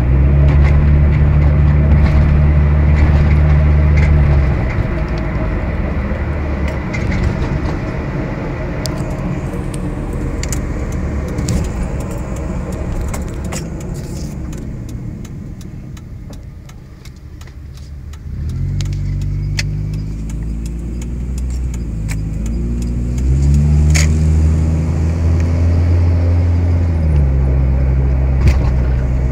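Cabin sound of a 2003 Mitsubishi Lancer ES's 2.0 L SOHC four-cylinder engine on the move. It drones steadily, then eases off to road noise that dies down about two-thirds through. It then pulls away again with rising engine pitch before settling to a lower drone, with light clicks and rattles throughout. The engine has a logged cylinder-2 misfire and has been sputtering.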